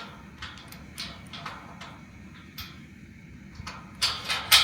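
Gate chain and lock being handled: a scattered series of sharp metal clicks and clinks, louder and closer together near the end.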